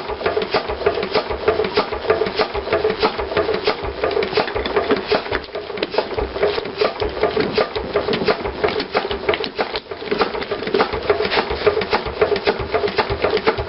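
Small 8 HP diesel engine running with a rapid, even clatter.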